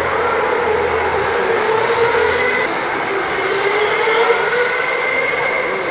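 Go-karts running around an indoor track, their motors making a steady whine that wavers slightly up and down in pitch.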